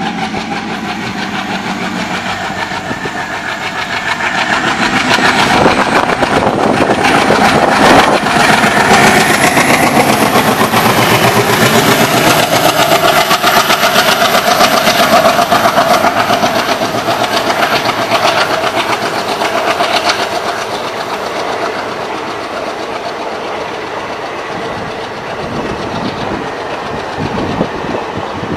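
A diesel locomotive pulls a passenger train away from a station under hard acceleration, working heavily as it comes close and passes, with a high whine rising in pitch over the first ten seconds or so. The sound then eases as the coaches roll by with the clickety-clack of wheels on the rails.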